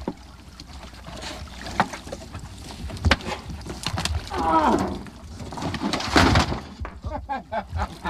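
Splashing water and knocks on a boat as a diver climbs back aboard, with a short falling vocal sound about four seconds in and a louder rush of noise about six seconds in.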